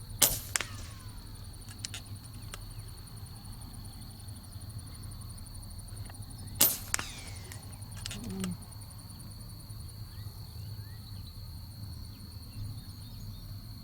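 Two shots about six seconds apart from an unsuppressed FX Streamline .25 PCP air rifle, each a sharp crack followed about half a second later by a smaller second crack. A steady high insect drone, like cicadas or crickets, runs underneath.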